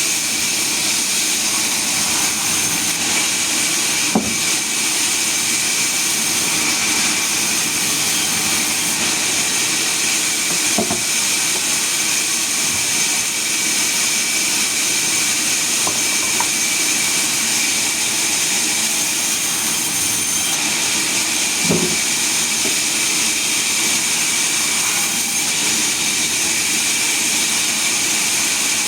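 Sawmill running: a steady mechanical noise with a constant high whine, broken by a few brief knocks.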